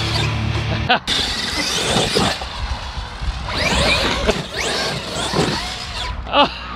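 Electric brushless motors of Traxxas X-Maxx RC monster trucks whining as they rev, the pitch rising and falling several times, over background music.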